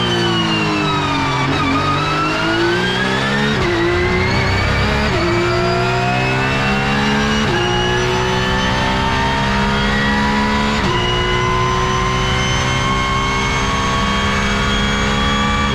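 Porsche 911 GT3 Cup (992) naturally aspirated 4.0-litre flat-six, heard from inside the cockpit: the revs fall as the car slows through a corner in first gear, then it accelerates at full throttle, the pitch climbing through the gears with a sudden drop at each of four upshifts.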